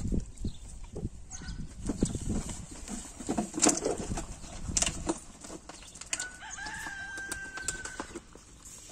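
Flat-coated retriever puppies scuffling and knocking about on paving stones in play, with scattered thumps and clatters for the first few seconds. About six seconds in comes one long, steady high-pitched call lasting nearly two seconds.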